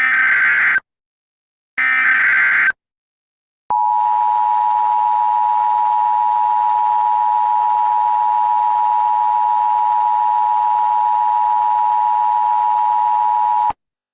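Emergency Alert System transmission: the last two SAME header data bursts, short harsh screeching digital tones about a second apart. They are followed by the EAS attention signal, a steady two-tone beep (853 and 960 Hz) held for about ten seconds that cuts off abruptly.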